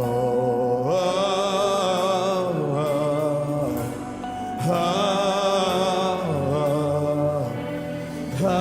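Christian worship music: a held melody line with vibrato in long phrases over sustained accompaniment, with no sung words.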